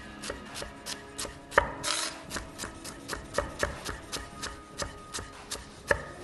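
Chef's knife rapidly slicing celery on an end-grain wooden cutting board: a steady run of crisp knife strikes, about three to four a second, with a couple of harder chops.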